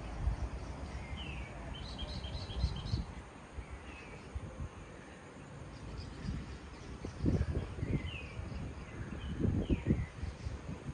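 Morning outdoor ambience: birds chirping with short, quick calls, including a fast run of high notes a couple of seconds in. A low rumbling surges twice, about seven and nine and a half seconds in.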